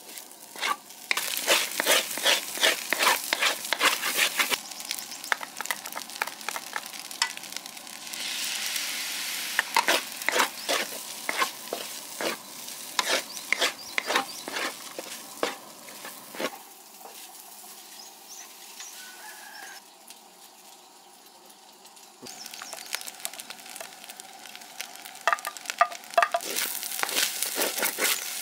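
Wooden spatula scraping and tossing fried rice in a hot wok, the rice sizzling, with rapid irregular scraping strokes. About two-thirds through the stirring eases into a quieter stretch of low sizzle, then the quick strokes resume.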